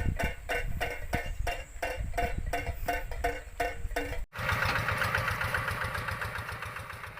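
PVC-pipe windmill bird scarer (klencer) clacking as it turns, its strikers hitting the pipe about four to five times a second with the same ringing note each time. After a brief break about four seconds in, it clatters faster and more densely, then fades near the end.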